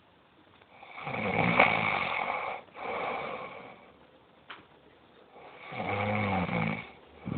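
Loud snoring: a long snore about a second in, a shorter one right after it, then another long snore near the end.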